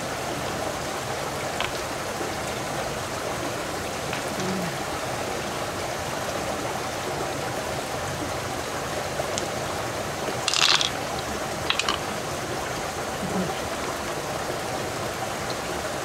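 Steady rush of a small river's flowing water, with a few brief sharp clicks a little past the middle.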